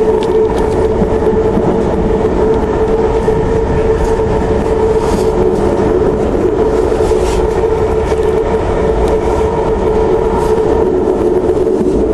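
Passenger train running at speed through the Hudson River tunnels, heard from inside the coach: a loud, steady rumble with a steady hum over it and a few faint clicks of the wheels on the rails.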